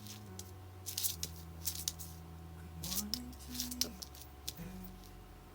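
Soft background music of held low notes that change every second or two, with scattered crisp clicks and short rustling noises from something being handled.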